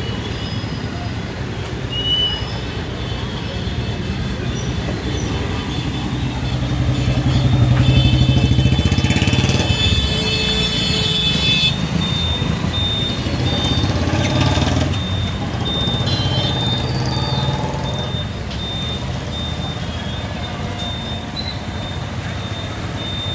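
Motor vehicle traffic: engines running steadily, with one vehicle growing louder and passing a third of the way in.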